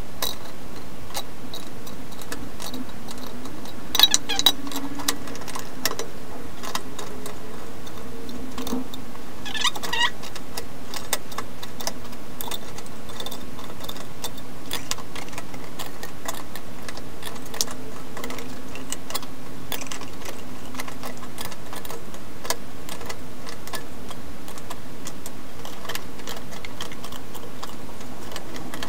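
A stainless-steel buckler dome is pressed down by hand onto aluminium vise jaw covers to shape its bends. It gives a run of light metallic clicks and ticks, with a few sharper metal knocks about four and ten seconds in.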